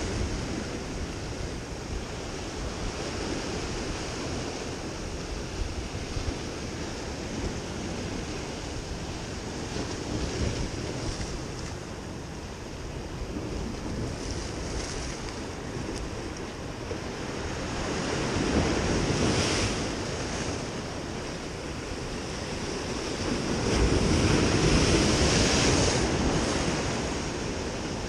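Ocean surf breaking and washing over the rocks of a jetty, a steady rushing wash that swells louder twice, about two-thirds of the way in and again shortly after.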